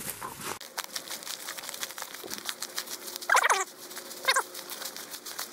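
Footsteps crunching through dry fallen leaves and twigs, with two short, loud wavering calls about a second apart midway through.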